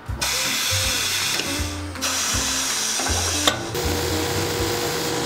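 Shoe finishing machine running steadily under background music; from about three and a half seconds in, a leather heel edge is ground against its sanding wheel with a steady hum.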